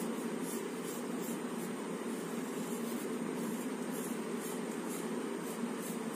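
Pencil scratching on paper in short repeated sketching strokes, about two to three a second, over a steady low background hum.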